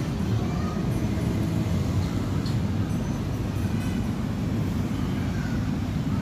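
Steady low rumble of outdoor urban background noise.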